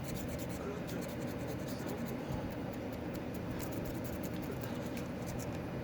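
A blade scraping lightly and repeatedly over the welded joint of plastic 3D-printer filament: a continuous run of fine scratches, trimming the bead so the filament passes through the tube.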